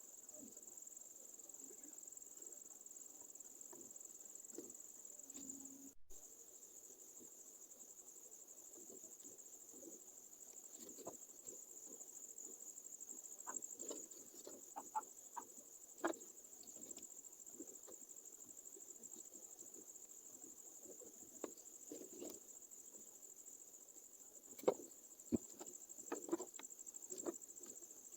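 Crickets chirping steadily in a high, continuous trill, with scattered faint clicks and taps and a few sharper clicks near the end.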